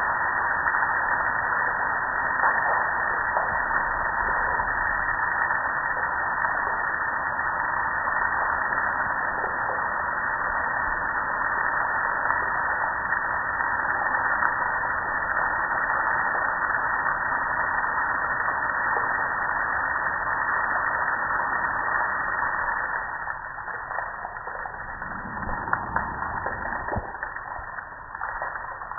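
Water spraying onto a gas grill and splashing off its lid and panels, a steady hiss. The spray eases off near the end, with a few knocks.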